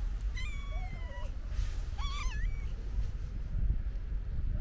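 Hungry stray cats meowing: two short meows, about half a second in and about two seconds in, over a steady low rumble.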